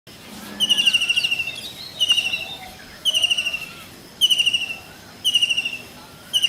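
Kingfisher calling: a run of six short, fast, shrill trills, each lasting under a second and repeated about once a second, with faint calls of other birds behind.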